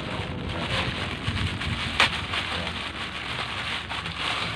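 Thin plastic packaging crinkling and rustling as it is handled and pulled open, with one sharp snap about two seconds in.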